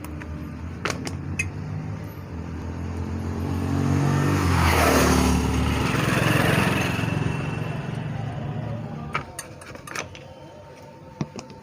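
A motor vehicle passing close by, its engine hum and road noise swelling to a peak about five seconds in and then fading. A few sharp metallic clicks near the start and again near the end, from pliers working the chain's connecting link.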